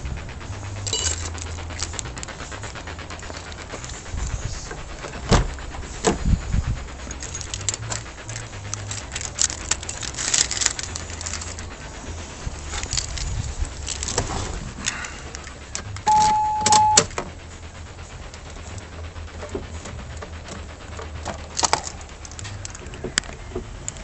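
A car key jingling as it is handled, among scattered clicks and knocks from the car's door and interior. About two-thirds of the way through, a single steady electronic beep sounds for about a second.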